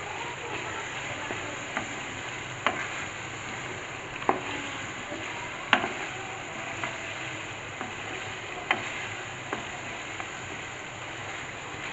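Chicken pieces and spice masala sizzling in an aluminium pot while a spatula stirs and scrapes through them, with a sharp knock of the spatula against the pot about once a second. This is the bhuna stage of a chicken curry, with the meat and masala frying together.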